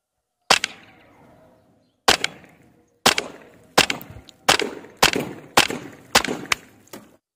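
Snowpeak M40 PCP bullpup air rifle firing semi-automatically: a string of about ten sharp shots, each with a short echoing tail. The first two come a second and a half apart, then the rest follow at roughly two a second.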